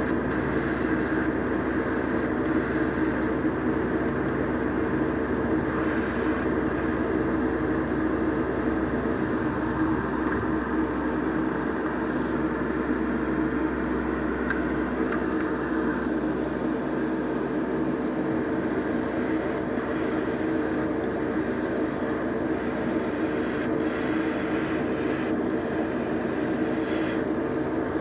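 Airbrush hissing as it sprays paint, dropping away for several seconds in the middle, over a steady motor whir from the spray setup.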